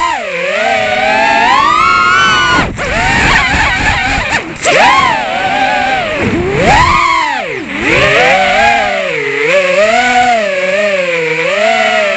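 FPV freestyle drone's brushless motors whining, the pitch swooping up and down continuously with the throttle, with brief drop-outs about three and four and a half seconds in.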